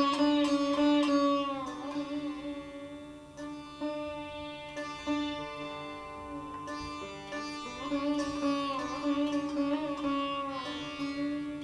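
Sitar playing alone, without tabla, in a slow Hindustani classical passage: plucked notes that slide and bend in pitch, ringing on over steady sympathetic-string resonance.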